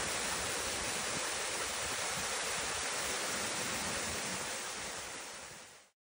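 Waterfall rushing over rocks, a steady roar of white water that fades out quickly near the end.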